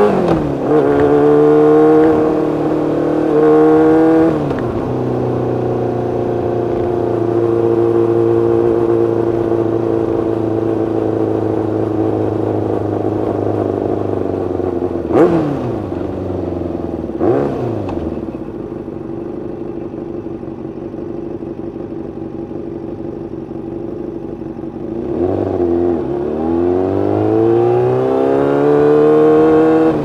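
Yamaha FZ6's inline-four engine under way. It revs, drops in pitch about four seconds in as it shifts up, and then runs steadily. Around the middle come two quick sharp dips and recoveries in pitch; it then runs quieter for several seconds and revs up again, rising in pitch, near the end.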